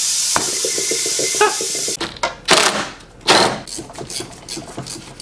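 Steady hiss of a suction tool drawing power-steering fluid out of the pump, cutting off abruptly about two seconds in. Then scattered clinks and knocks of tools on metal, with a run of quick clicks near the end.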